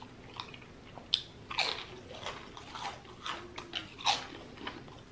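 Close-up chewing with sharp crunches of crisp food, several irregular crunches, the loudest about a second in and again about four seconds in.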